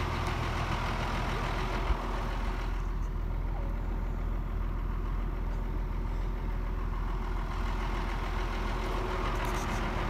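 Tractor engine idling steadily while it powers the hydraulic hoist of a raised dump wagon.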